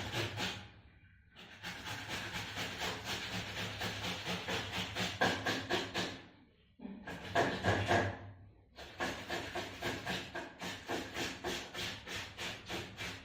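Tomatoes being grated on a hand grater: quick, even rasping strokes, about four a second, in several runs broken by brief pauses.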